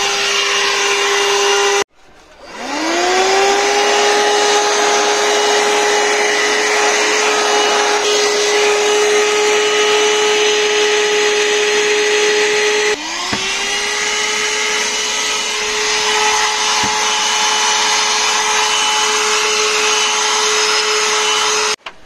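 A handheld Oshotto car vacuum cleaner runs steadily with a motor whine and rushing air as its nozzle sucks dirt from the car's floor carpet. About two seconds in it stops and starts again, its whine rising to speed within a second. Just past halfway it briefly dips and rises again.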